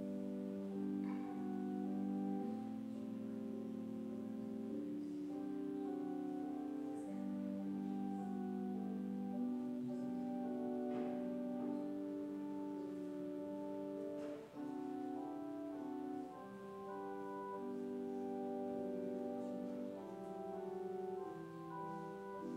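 Slow instrumental keyboard music: chords of long held notes, changing every second or two.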